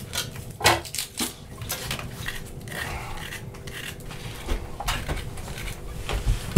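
Small knife scraping and cutting as an onion and then a carrot are peeled by hand, heard as irregular scrapes and small knocks.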